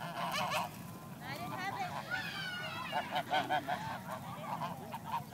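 A flock of geese honking, many short calls overlapping, with a quick run of honks about three seconds in.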